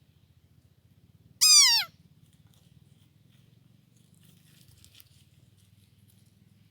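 A single short animal cry, about half a second long and falling in pitch, about a second and a half in, with a few faint ticks later on.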